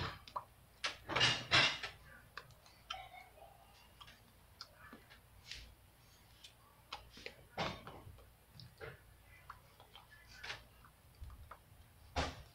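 Hands tapping, clapping and brushing together while signing, heard as irregular soft taps and clicks. The loudest cluster comes about a second or two in.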